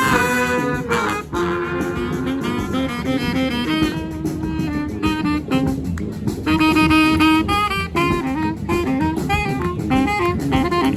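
A brass band playing live: saxophone and brass horns in short, repeated phrases over drums.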